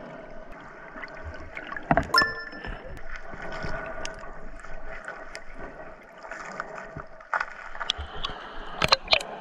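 Underwater sound picked up by a submerged camera: muffled water noise with scattered knocks and clicks as the catch bag and rod are handled among the rocks. A short ringing ping sounds about two seconds in, and two sharp clicks come close together near the end.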